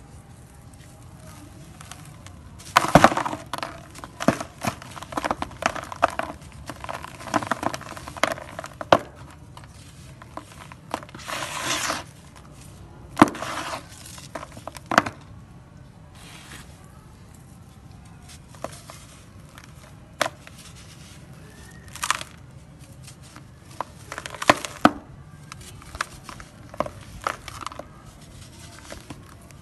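Dry, dusty grey sand-cement lumps being crushed and crumbled by hand: dense runs of crackly crunching, then single sharp cracks scattered among quieter stretches.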